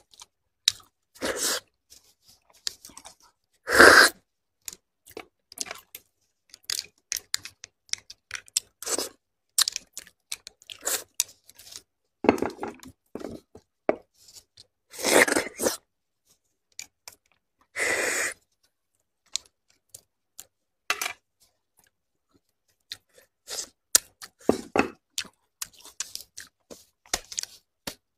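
Close-miked eating sounds: wet chewing and sucking of braised beef bone marrow, with plastic-gloved hands handling the sauced bones. The clicks and smacks come irregularly, with a handful of louder slurps and a few seconds of quiet past the middle.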